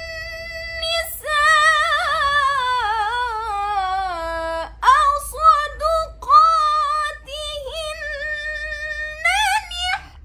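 A woman's solo voice reciting the Qur'an in melodic tilawah style. She holds long notes with wavering ornaments and sinks through a long falling run in the first half, then moves into shorter phrases with brief pauses, rising higher near the end.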